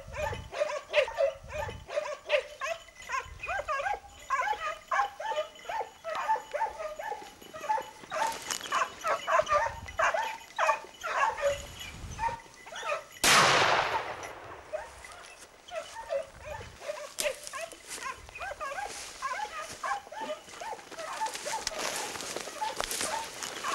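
A pack of hunting hounds baying and yelping rapidly on a wild boar. About 13 seconds in, a single loud shotgun shot rings out, and the hounds keep giving tongue after it.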